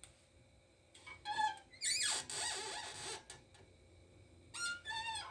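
Metal parts of an Oregon bench chain grinder squeaking and scraping as its tooth stop and pusher are adjusted: a short squeak a bit over a second in, a scraping rattle lasting about a second, then a pair of squeaks near the end.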